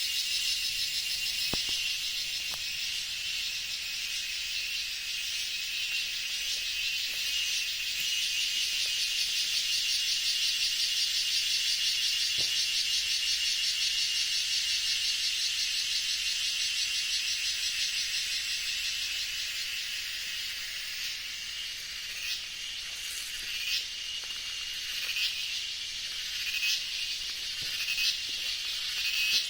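A dense, steady, high-pitched chorus of insects in a forest, with a fine pulsing buzz. About two-thirds of the way in the chorus thins and short, sharp calls begin repeating about every second or so.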